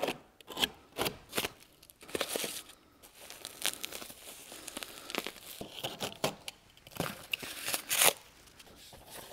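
Utility knife cutting and tearing duct tape on the end of a cardboard shipping tube, in short scratchy rasps, then white foam packing crinkling as it is pulled out of the tube, loudest about eight seconds in.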